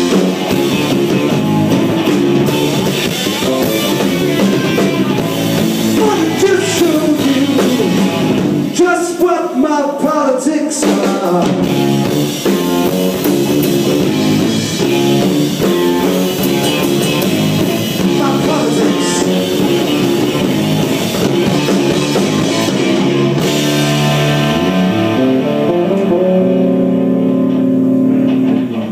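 Rock band playing: electric guitar, drums and singing, closing on a long held chord near the end.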